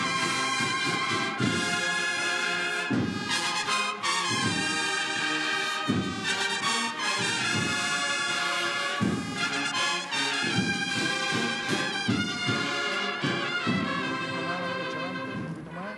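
Cofradía band of cornets and drums playing a procession march: a brass melody over repeated drum strokes.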